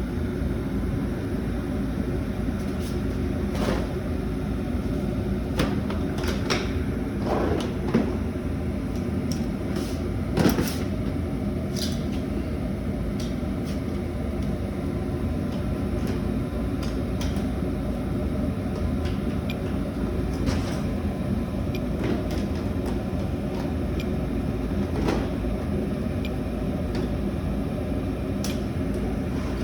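Residential forced-air furnace running with a steady hum after being switched back on, with scattered clicks and knocks from handling.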